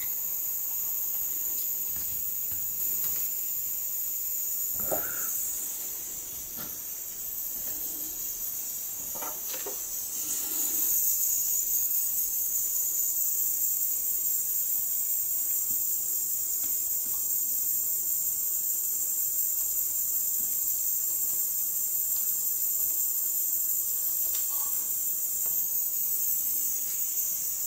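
Steady high hiss of a cordless butane soldering iron, running as wires are soldered to a DIN connector; the hiss gets louder about ten seconds in, with a few faint taps.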